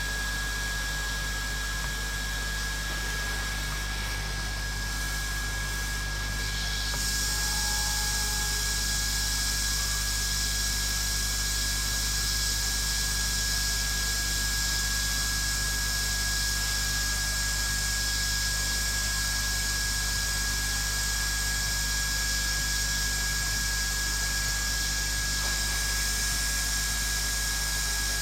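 Straight-nozzle hot air rework gun blowing steadily with a thin high whine, heating a phone mainboard at about 250 °C to soften the underfill glue around a chip. Its hiss grows brighter and a little louder about seven seconds in.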